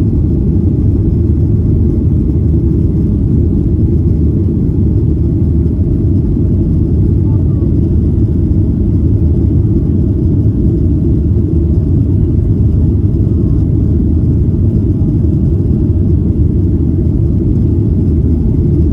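Steady deep rumble of a jet airliner's engines and rushing air, heard from inside the passenger cabin.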